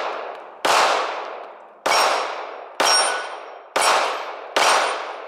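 SCCY DVG-1 9mm micro-compact pistol fired five times in a slow string, about one shot a second, each report dying away over about a second. A thin metallic ring follows several of the shots as rounds strike the steel target.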